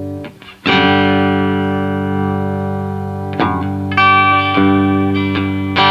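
Electric guitar with a homemade scatter-wound ceramic-magnet pickup, played through a small tube amp as a sound test of the pickup. After a brief gap, a chord is struck about half a second in and rings on, then more notes are picked from about three and a half seconds in.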